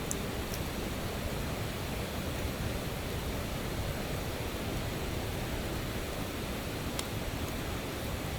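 A campfire crackling, with a few sharp pops, including two near the start and one near the end, over a steady rushing noise.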